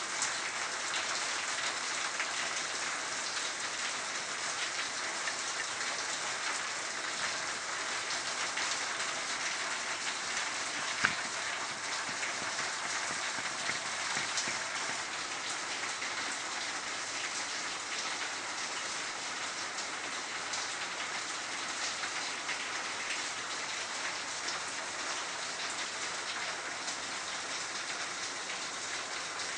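Water pouring and splashing steadily into a reactor building basement through a breach where groundwater leaks in, a constant rush like heavy rain. One sharp click about eleven seconds in.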